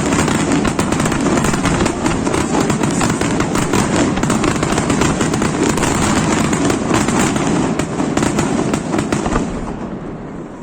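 Aerial fireworks going off in a dense, continuous barrage of bangs and crackling, thinning out and dying away near the end.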